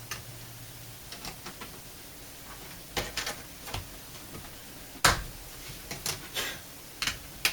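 Scattered plastic clicks and knocks from a laptop's battery and its release latches being worked loose. The sharpest knock comes about five seconds in, with a cluster of clicks around three seconds and more near the end.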